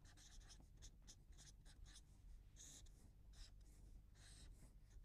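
Faint scratching of someone writing by hand, a run of short, irregular strokes.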